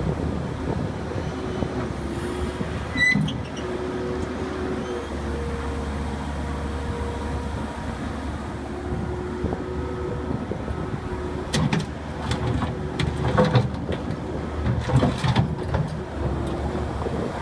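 Terex TSV60 skid steer loader running as it is driven about: a steady engine drone with a whine that shifts in pitch now and then. A sharp knock about three seconds in, and a run of clanks and knocks in the last few seconds.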